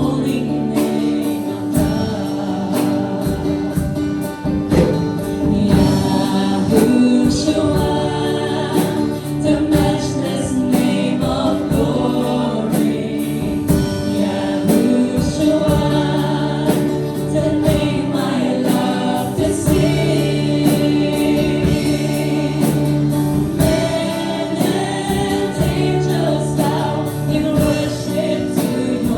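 Worship team singing a Christian worship song together as a group, with instrumental accompaniment and a steady beat.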